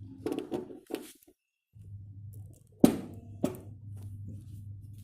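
Sharp mechanical clicks and knocks over a steady low hum. A cluster of clicks comes in the first second, and the two loudest come a little past the middle, about half a second apart.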